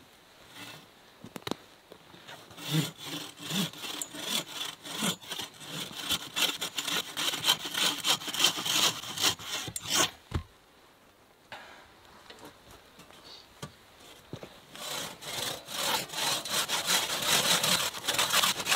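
Hand saw cutting through a log, fast back-and-forth strokes of the blade in wood. The sawing stops for about four seconds in the middle, then starts again.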